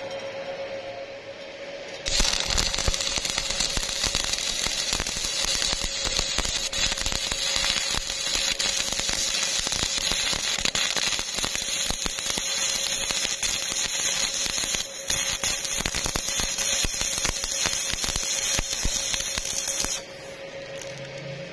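Stick (shielded metal arc) welding a steel pipe joint: the electrode's arc strikes about two seconds in and crackles and hisses steadily, with a momentary break a little past the middle, then stops abruptly near the end.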